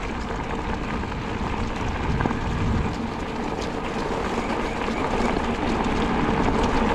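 Bicycle tyres rolling over a leaf-covered gravel road: a steady rumble with small ticks from the gravel, growing louder as the bike gathers speed down a dip.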